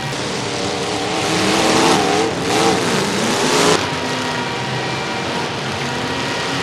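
Demolition derby car engines revving up and down under a loud rushing roar, which cuts off sharply about four seconds in. Lower, steadier engine noise follows.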